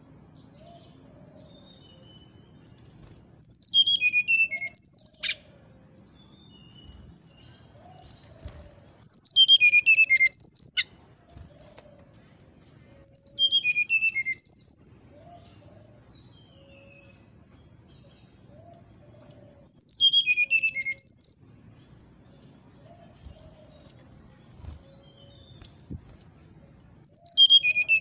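Brown-chested jungle flycatcher singing: five loud song phrases, each a quick run of clear notes falling in pitch, a few seconds apart, with soft high twittering notes between them.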